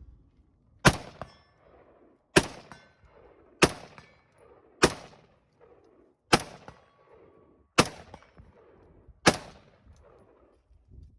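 Seven single rifle shots from a semi-automatic rifle, fired at a steady pace of about one every second and a half, each followed by a short echo.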